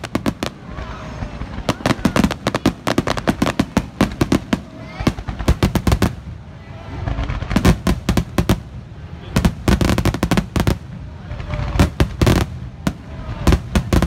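Fireworks finale: a rapid barrage of aerial shell bursts, many loud bangs a second overlapping with crackling, thinning briefly about six seconds in before picking up again.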